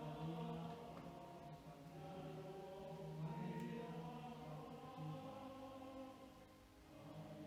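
A man's voice in a drawn-out, chant-like delivery, holding long pitches, over soft background music.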